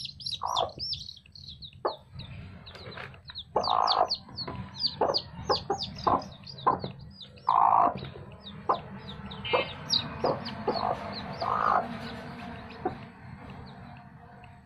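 Chicks peeping in rapid, high-pitched chirps while a mother hen clucks, with a few longer calls about four seconds apart: her reaction to a hand touching her chicks. The peeping thins out near the end.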